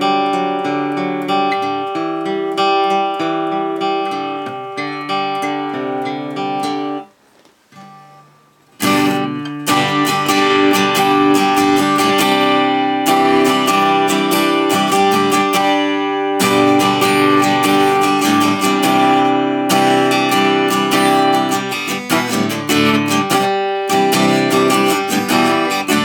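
Yamaha FJX720SC steel-string electro-acoustic guitar being played: single notes and chords picked for about seven seconds, a short pause, then steady, louder chord strumming.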